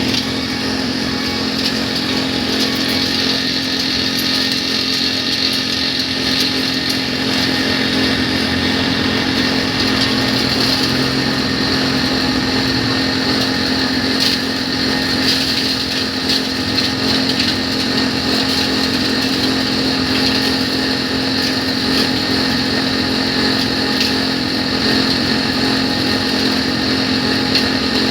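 A small engine-driven machine running steadily at high speed, with a constant hum and a high, whining edge.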